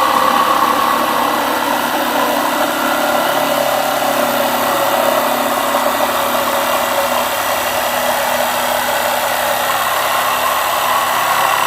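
Electric power saw running steadily while cutting a piece of wood, a loud continuous whine with no break.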